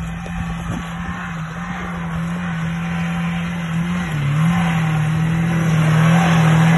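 Lada Niva 4x4 engine held at high, steady revs while driving off-road in snow. The revs dip briefly about four seconds in and then recover, and the sound grows gradually louder.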